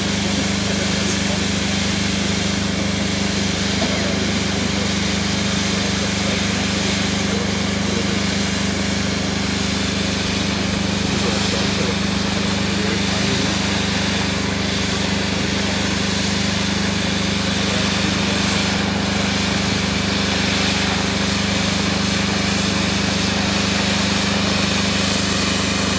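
Firework fountains and wheel drivers on a ground-level pyrotechnic front piece, burning with a continuous rushing hiss over a steady low drone.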